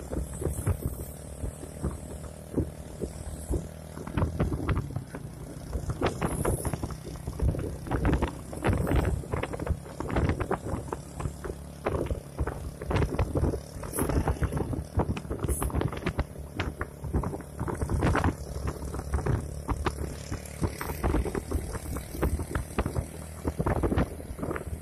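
Vehicle driving on a road, a steady low engine hum under constant irregular knocking and buffeting.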